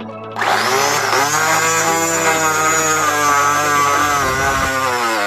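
A 775 DC motor driving a 3D-printed external gear pump starts about half a second in with a rising whine as it spins up. It then runs at a steady high whine, dipping slightly in pitch toward the end.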